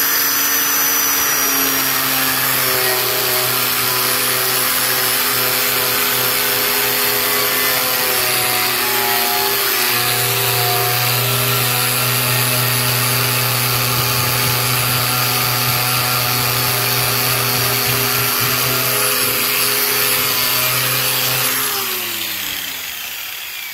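Loud electric angle grinder running steadily with a purple abrasive scrubber pad, stripping paint off the sheet-metal door skin. Near the end the motor is switched off and winds down, its whine falling in pitch.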